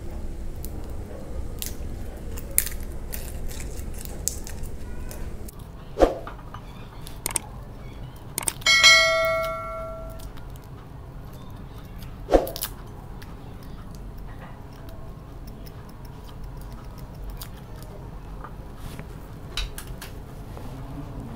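Small paring knife scraping and clicking against garlic cloves and a ceramic plate as the cloves are peeled, with a couple of sharp knocks. About nine seconds in, a bright bell-like chime rings and fades over about a second, the loudest sound.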